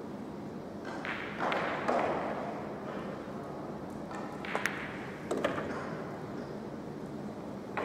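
Pool shot: a cue tip clicks the cue ball, followed almost at once by a sharp ball-on-ball click. About a second later come a couple of duller knocks as the object ball drops into a pocket. About a second and a half in, there is a brief rush of muffled background noise from the hall.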